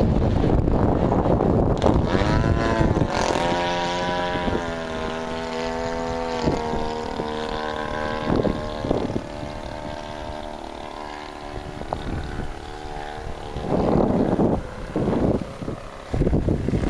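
Gas engine of a radio-controlled float plane running in flight, its pitch swinging up and down about two to three seconds in, then holding a steady tone with slight dips. Wind buffets the microphone at the start and in gusts near the end.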